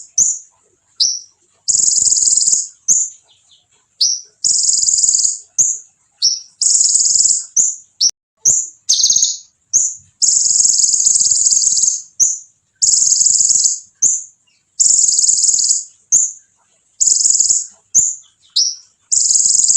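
A konin songbird singing hard and continuously: high, shrill phrases about a second long alternating with short sharp chirps, one after another with only brief pauses.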